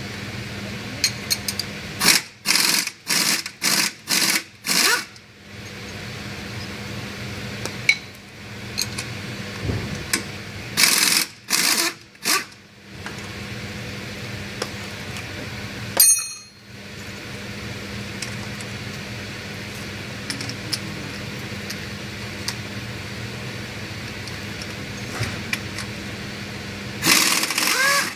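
Pneumatic impact wrench firing in short rattling bursts as it drives the front hub bearing's mounting bolts into the steering knuckle: a run of about six quick bursts, then three, then a single sharp one, and one more near the end, over a steady low hum.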